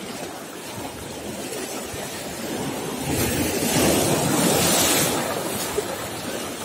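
Sea waves breaking and washing around shoreline rocks, with wind on the microphone; a larger wave surges up loudest about three seconds in and subsides after a couple of seconds.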